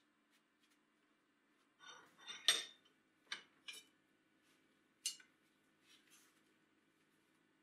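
Steel strip clinking and clanking against the steel rollers of a hand-cranked ring roller as it is bent and handled: a handful of sharp metallic knocks, the loudest about two and a half seconds in, over a faint steady hum.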